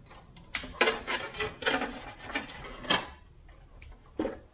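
Stiff steel wire scraping and clicking against sheet metal as it is fed and worked through a hole in a car's firewall: a quick run of rattles and scrapes, then one more clack near the end. The wire is catching and tangling inside the panel.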